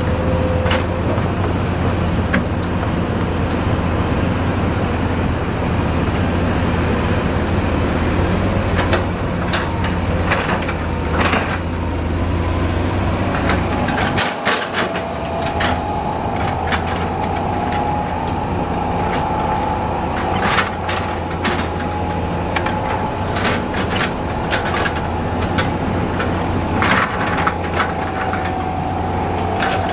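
Heavy diesel construction machinery running steadily, with a low engine drone and scattered clanks and knocks. A steady whine joins about halfway through.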